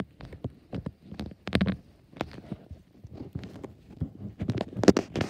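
Irregular soft thumps and knocks of a phone being handled and carried about, with footsteps.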